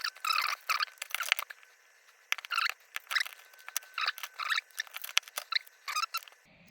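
Short metallic scrapes and clicks from a padlock and its pin-tumbler core being handled and taken apart, coming in quick irregular succession. They stop suddenly near the end.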